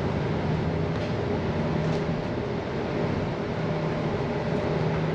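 Steady drone of a moving vehicle heard from inside, an even noise with a low hum and no sudden events.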